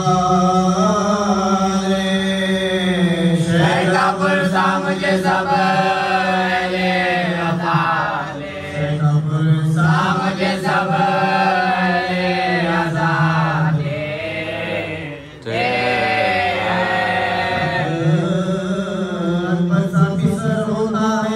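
Voices chanting a slow Shia mourning lament for Sakina in long, drawn-out held notes, with no beat or instruments. The chant breaks off briefly about fifteen seconds in, then resumes.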